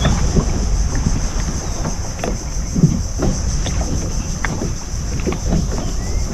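Fibreglass fishing boat under way on an outboard engine: steady engine noise and wind buffeting the microphone, with water splashing and slapping against the hull every second or so.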